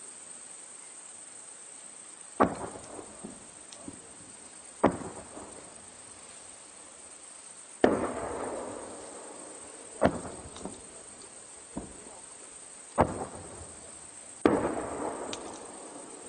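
Distant explosions from shelling: seven sharp blasts at uneven spacing, one every one to three seconds, each followed by a long rolling echo.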